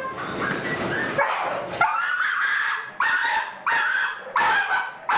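A dog barking sharply over and over, starting about two seconds in, at roughly one bark every half to three-quarters of a second.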